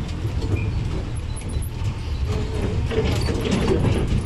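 Open-top sightseeing bus running through town traffic, heard from its upper deck: a steady low engine rumble with road noise and scattered short clicks and rattles.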